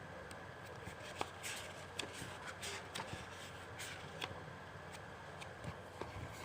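A CD album's contents being handled: short paper rustles and light clicks and taps, clustered in the first half, over a faint steady hiss.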